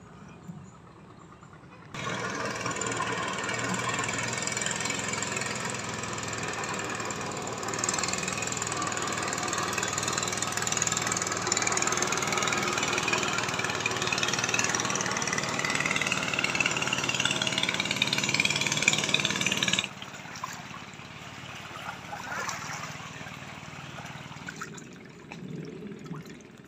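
A motor running steadily, its pitch rising over several seconds, which starts and cuts off abruptly. Quieter outdoor background follows.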